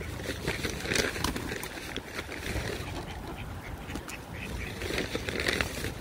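Mallard ducks quacking a few times, with pigeons' wings flapping now and then.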